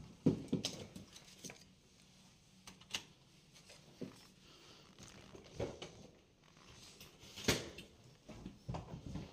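Scattered soft knocks and shuffles of someone moving about a small, quiet room, the sharpest about a third of a second in and about seven and a half seconds in.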